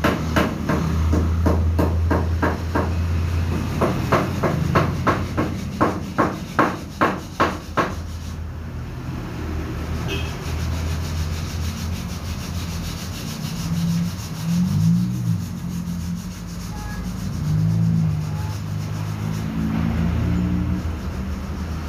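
A hammer tapping new oil seals into a scooter's gearbox: a run of sharp, evenly spaced taps, about two or three a second, over a steady low hum. The taps stop about eight seconds in, and the low hum carries on alone.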